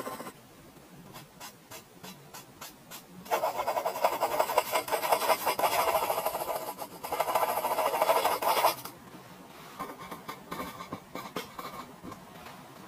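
Graphite pencil scratching on drawing paper in quick hatching strokes, dense and continuous from about three seconds in to about nine, with a few light strokes and ticks before and softer scratching after.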